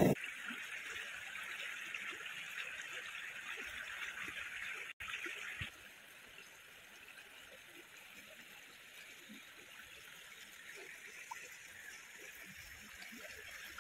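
Small shallow stream trickling over stones, a faint steady hiss of running water that drops quieter after about six seconds.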